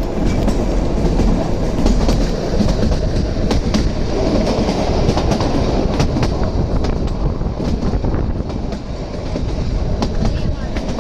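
Kalka–Shimla narrow-gauge toy train running: a steady rumble with irregular rattling clicks from the wheels and coaches.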